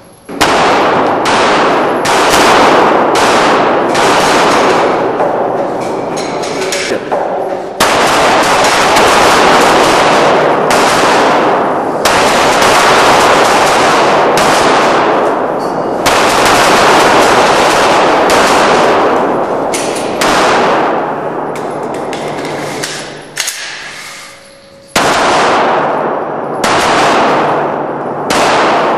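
Glock 9mm pistols firing many shots in quick strings, each shot ringing on in heavy echo off the rock walls of an enclosed range.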